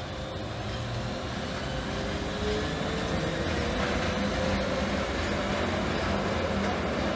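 ÖBB class 1144 thyristor-controlled electric locomotive passing close by with its train, its motor whine rising in pitch as it grows louder over the rumble of the train.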